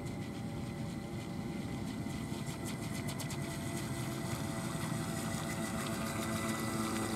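Brushless electric motor of a 1 m radio-controlled model cruiser running at steady speed, a steady whine with several tones over a rush of water, getting a little louder as the boat comes closer.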